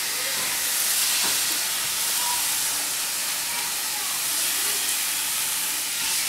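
Rabbit browning in a frying pan, a steady sizzle.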